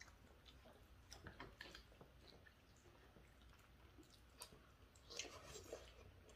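Faint chewing of food, with small clicks of chopsticks against bowls and dishes; a somewhat louder stretch of chewing about five seconds in.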